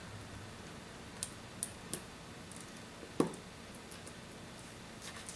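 A few light clicks and taps of small parts being handled as the iPad 2's power button is seated and its flex ribbon cable pressed into place, with one sharper click about three seconds in.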